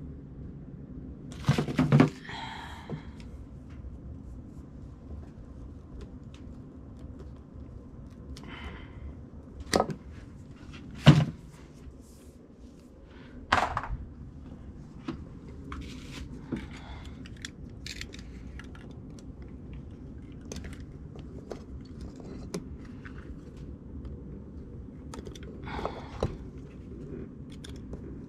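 Scattered clicks and knocks of hands handling tools and the metal electrical box and outlet parts, with a handful of sharper knocks, over a steady low hum.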